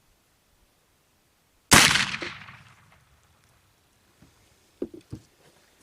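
A Cabela's Hawken black-powder muzzleloading rifle fires one shot about two seconds in, a sharp crack whose echo dies away over about a second. A couple of small knocks follow near the end.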